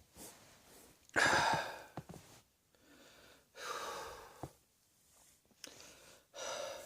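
A person coughing and gasping for breath: a sharp, loud burst about a second in, followed by two more heavy breaths a few seconds apart.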